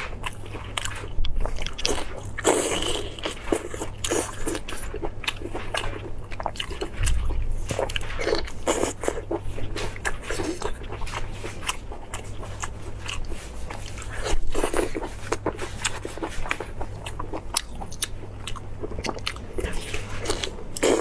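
A person biting and chewing meat close to the microphone: many short, irregular bites and chews, with a few louder bites scattered through.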